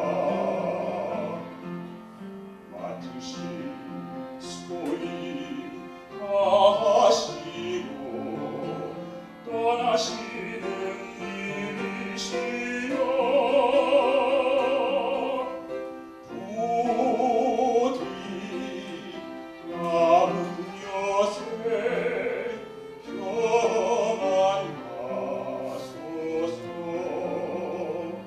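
A male singer singing a slow Korean memorial song in a classical, operatic style, with vibrato on long held notes, over instrumental accompaniment.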